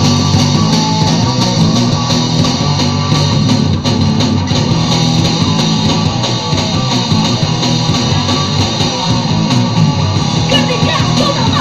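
Live rock band playing loud: electric guitars, bass guitar and drums together, with singing coming in near the end.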